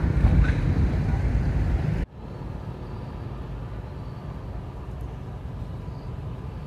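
Loud low rumbling outdoor background noise that cuts off abruptly about two seconds in, leaving a quieter, steady outdoor background hiss for the rest.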